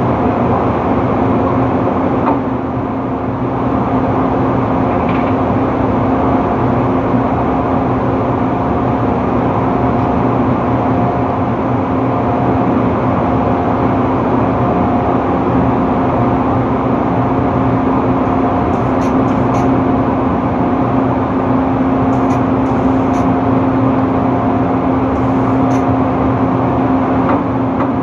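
Steady, loud drone of drilling rig machinery on the rig floor: a constant low hum with a fainter, higher tone that comes and goes.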